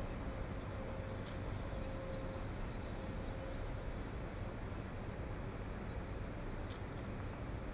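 Steady background noise like room tone, with a faint steady tone that fades away in the first few seconds and a couple of faint clicks.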